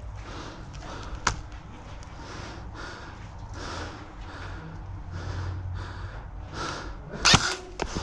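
A person breathing heavily close to the microphone, a soft hissing breath about once a second. A sharp click about a second in, and near the end a few loud sharp cracks.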